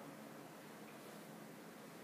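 Near silence: faint, steady room tone with a light hiss.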